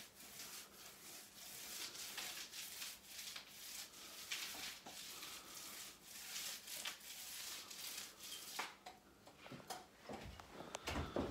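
Paste roller rolling wallpaper paste onto a wall: a faint swishing in repeated strokes. Near the end, a few low knocks.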